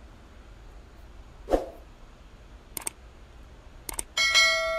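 A sharp click, two quick double clicks, then a bright multi-tone chime that starts near the end and rings out slowly: a subscribe-button notification sound effect.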